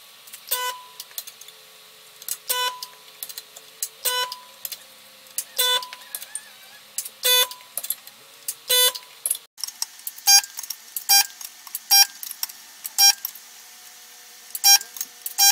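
Resistance spot welder firing a series of about a dozen welds to tack a stainless steel bracket onto sheet metal. Each weld is a short buzz with a sharp click. They come about one every second and a half at first, then faster, roughly one a second, in the second half.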